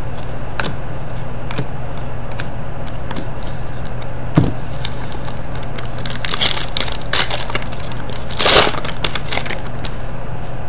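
Trading cards being handled and flipped through by hand: cards sliding and flicking against each other, with scattered light clicks and rustles and a louder rustle about eight and a half seconds in. A steady low hum runs underneath.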